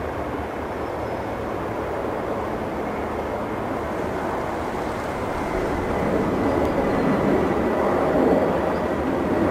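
Jet engine noise of an HK Express Airbus A320 climbing out at takeoff power: a steady rushing rumble with a faint high whine. It grows louder from about six seconds in.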